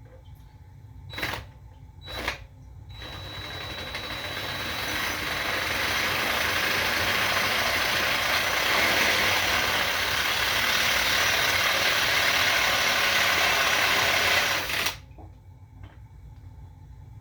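Hand-held electric drill with a 5/16-inch bit: two brief blips of the trigger, then about twelve seconds of steady drilling that builds up over the first few seconds and stops abruptly near the end.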